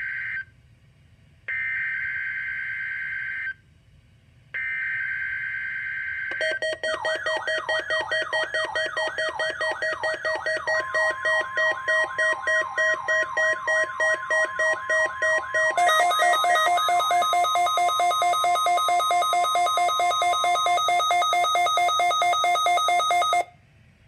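NOAA Weather Radio weekly test alert: three short bursts of the digital data header, each a raspy two-tone screech, then a loud pulsing alarm of fast repeated sweeping beeps, joined for about ten seconds by the steady warning alarm tone, which cuts off suddenly.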